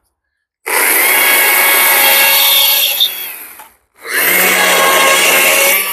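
Stihl MSA 140 C battery chainsaw with a carving bar cutting into wood in two cuts: one of about three seconds that trails off, then a second starting about four seconds in.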